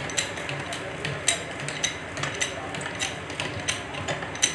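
Rapid, irregular metallic clicks and clinks, several a second, each with a short bright ring, around a homemade hydraulic sheet-metal bending press as a thin metal sheet is handled on its bed.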